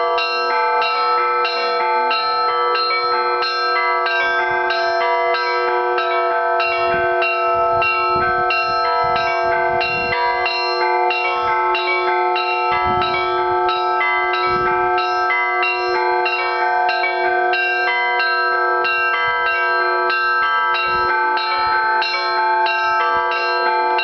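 Russian Orthodox church bells ringing together: small bells struck in a fast, even rhythm over the continuous ringing of the larger bells.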